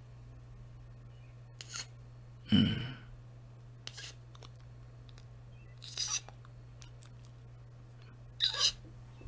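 Soft kissing sounds close to the microphone: a few short lip smacks a second or two apart, with one louder, lower mouth sound about two and a half seconds in. A steady low electrical hum lies underneath.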